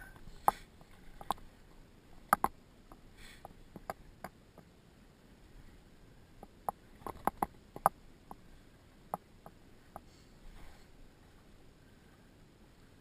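Irregular sharp clicks and knocks, about a dozen, at uneven intervals over a faint steady background, with brief soft rustles near 3 seconds and near 10 seconds.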